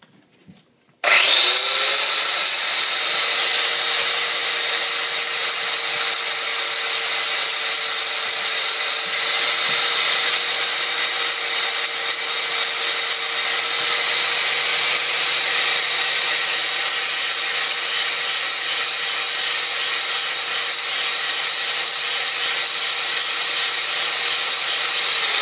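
Electric angle grinder switched on about a second in, spinning up and then running steadily while a coon trap's trigger is ground down against the wheel to clean up its notch.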